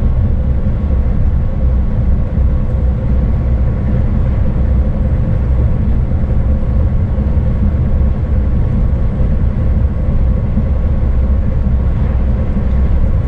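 Steady low drone of a Scania S500 truck cruising at highway speed, heard from inside the cab: engine hum and tyre noise with a faint steady whine over it.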